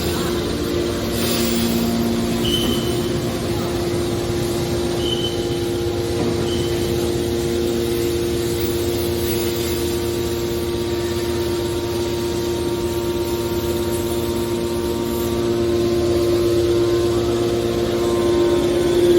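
Hydraulic metal baler's power unit running with a steady hum, growing slightly louder near the end. A few brief high squeaks sound in the first several seconds.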